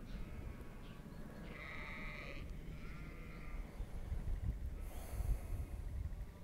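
Sheep bleating a few times in the first half, over a low wind rumble on the microphone.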